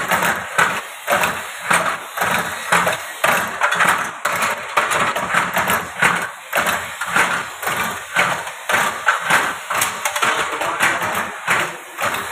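Automatic ring-making machine driven by a 1.5 hp electric motor, running with an even, repeating clatter of about two beats a second.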